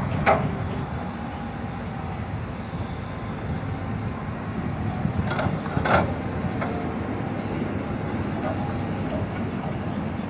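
Heavy diesel construction machinery running with a steady low rumble, broken by sharp metallic clanks: one at the start and two close together about five to six seconds in.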